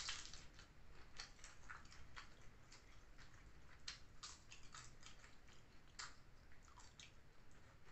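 Faint crunching of a crisp fried wonton cracker (pangsit) being bitten and chewed: many short, irregular crackles.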